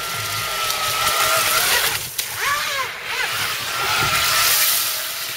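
Modified NQD RC jet boat with a Graupner jet drive running at speed: a high motor whine over the hiss of its water spray. The pitch dips and swings up and down a couple of seconds in as the throttle changes, then settles into the steady whine again.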